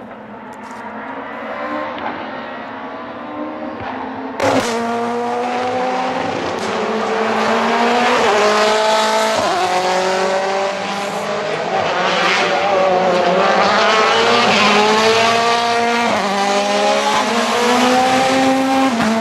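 Rally car engine revving hard, its pitch climbing again and again and dropping back at each upshift as it accelerates through the gears. There is a sharp bang about four seconds in, and the engine grows louder as the car comes closer.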